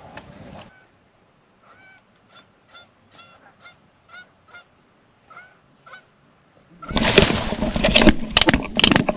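Geese honking, a dozen or so short, faint calls in an irregular series. About seven seconds in, a sudden loud rustling and clattering close by takes over.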